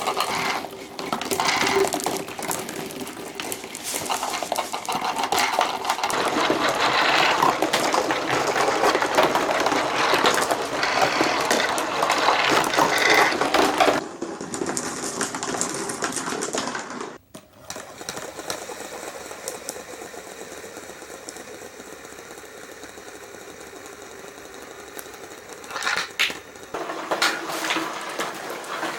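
Many glass marbles rolling and clattering through a marble run, a dense continuous rattle of small clicks. The sound changes abruptly about halfway and again a few seconds later, after which the rattle is quieter and steadier, with louder bursts of clatter near the end.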